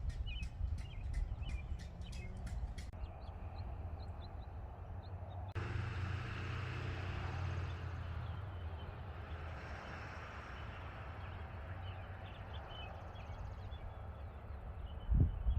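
Small birds chirping on and off over a steady low rumble of outdoor background noise. About five and a half seconds in, the background suddenly grows louder.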